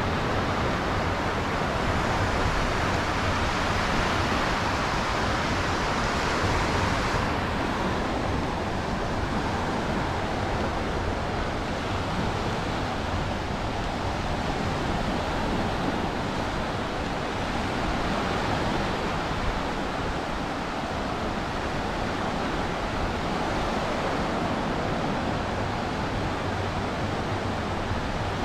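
Surf washing onto a sandy beach: a steady wash of breaking waves that swells during the first several seconds and then eases slightly.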